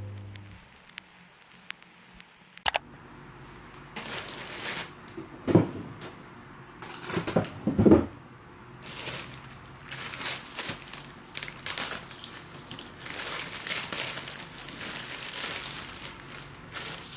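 Plastic courier mailer bags crinkling and rustling as they are handled and opened, in a run of crackly bursts, with a couple of louder knocks about five and eight seconds in. Background music fades out at the start.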